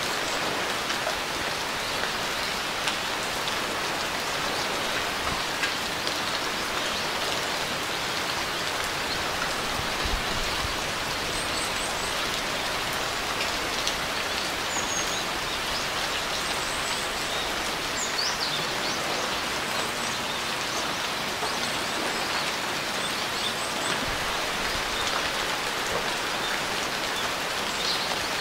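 Steady rain falling in an even hiss of many small drops. Through the middle, a few faint, high bird chirps sound over it.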